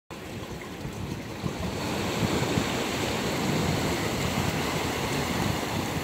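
Sea waves washing in over seaweed-covered shore rocks and draining between them: a steady rush of surf that swells after about a second and a half.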